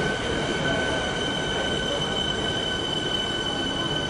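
Electric suburban train moving along the station platform: a steady rumble of the cars with a steady high-pitched squeal held over it.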